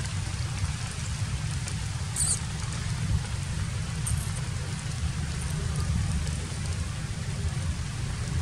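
Steady outdoor background noise, a low rumble with an even hiss, with one short high chirp about two seconds in.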